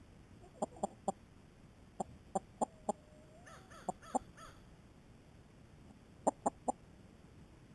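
Hens clucking close by: short, sharp clucks in quick runs of two to four, with one drawn-out, wavering hen call about three seconds in.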